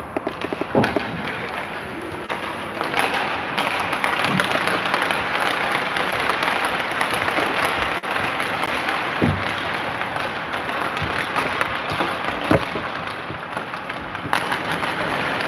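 Steady noisy din of an ice hockey rink, like scattered applause and chatter, with a few sharp knocks near the start and about 9 and 12.5 seconds in.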